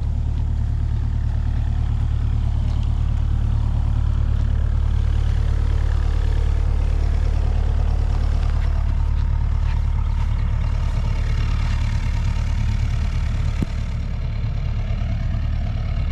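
A large engine idling steadily as a deep, even rumble. A single short knock comes near the end.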